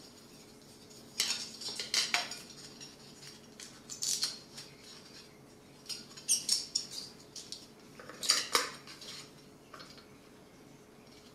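Clicks and clatters of a plastic film spool being handled and fitted onto its spindle in the open film chamber of a Canon DS8 movie camera, in irregular bursts about one, four, six and eight seconds in.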